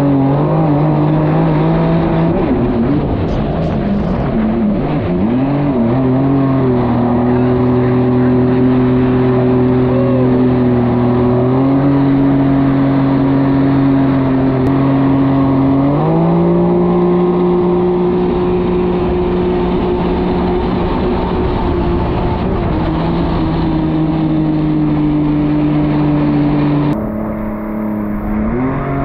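2021 Yamaha SuperJet's three-cylinder four-stroke engine running through a Riva straight-pipe exhaust while the ski is ridden. The revs rise and fall over the first few seconds, then hold at steady speeds with a few step changes in pitch. The sound drops and changes abruptly near the end.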